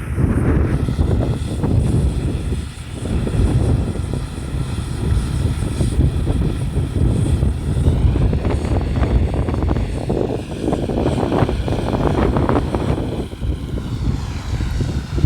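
Combine harvester running: a steady, loud engine and machinery noise with a faint high whine over it.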